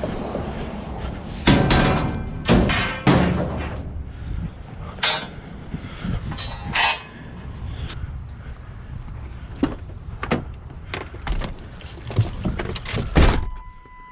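Heavy scrap steel, old tennis-court fence poles, being dropped and loaded: a series of loud metal clanks and thuds with short ringing, about a dozen strikes, over a low engine running.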